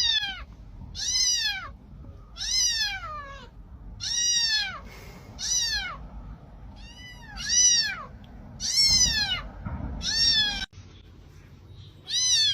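Kitten meowing over and over: about ten short, high-pitched meows, each rising and falling in pitch, roughly one a second, with a brief pause near the end.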